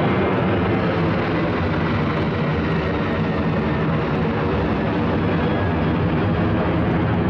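Jet airliner climbing out overhead after takeoff, its jet engines making a loud, steady rumble.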